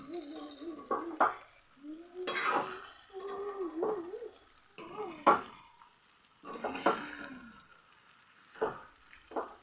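A spoon stirring a pan of sweet jujube pickle cooking in sugar and oil, with a few sharp knocks of the spoon against the pan and a faint sizzle underneath.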